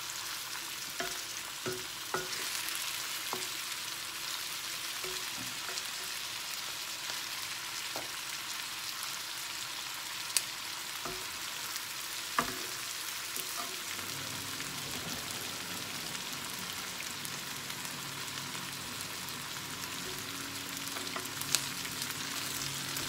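Chicken drumsticks and minced garlic sizzling steadily in oil in a nonstick pan, with a few sharp clicks of a spatula against the pan.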